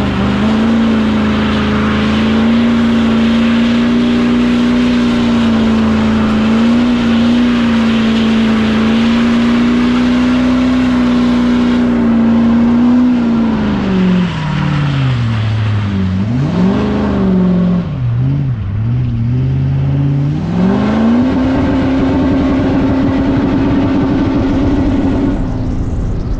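Duramax V8 turbo-diesel pickup held at high revs while spinning its tyres in a burnout, a steady engine note. About 13 s in the revs drop and swing up and down several times, then climb back and hold with a rapid stutter before falling off near the end.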